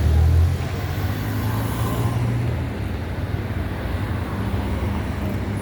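Street traffic: vehicle engines running with a steady low rumble, loudest in the first half second.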